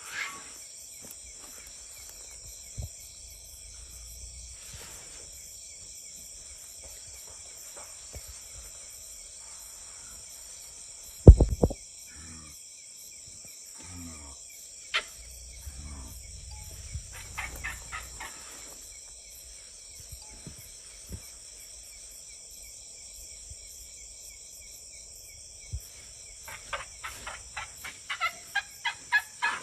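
Steady high-pitched chorus of insects such as crickets or cicadas, with a single loud thump about 11 seconds in and a quick run of short chirping calls near the end.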